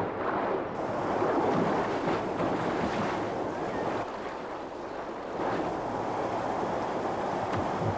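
White water rushing and splashing over rocks in river rapids.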